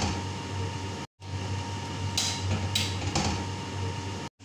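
Steady low machine hum, like an appliance or fan running, with two brief hissing rustles a little over two seconds in. The sound cuts out completely for a moment about a second in and again at the end.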